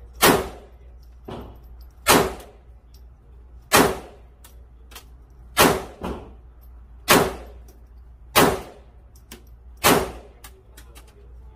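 A Glock 48 9mm pistol fired seven times at a slow, steady pace, about one shot every one and a half to two seconds. Each report rings briefly off the walls of the indoor range.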